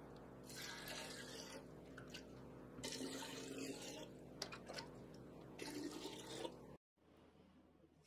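Water poured from a jug into a clay pot: faint pouring and splashing in three spells. It cuts off suddenly a little before the end.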